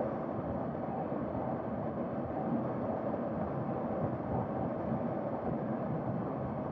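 Steady wind rush over the microphone of a camera on a KTM RC 390 riding at highway speed, mixed with the bike's running and road noise.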